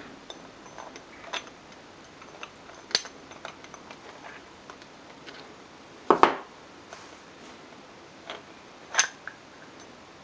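Small metal parts and tools being handled on a workbench: scattered light clinks and clicks, with sharp clinks about 3 s and 9 s in and a heavier double knock about 6 s in.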